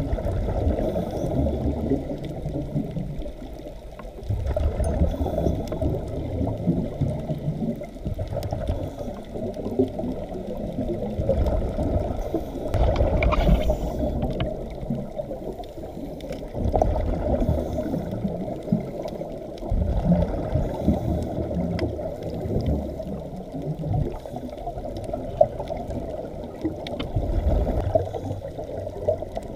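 Scuba diver's regulator breathing heard underwater: bubbly exhalations rumbling out in surges every few seconds, with a steady underwater wash between them.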